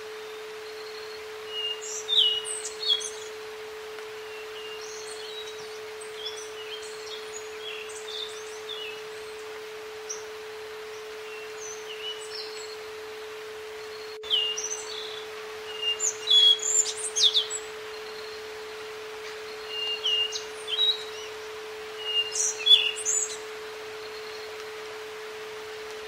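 A steady pure tone held at one pitch, a synthetic entrainment tone, under a recording of wild songbirds chirping in scattered bursts over a faint hiss. The birdsong is loudest about two seconds in and again from about 14 to 18 seconds.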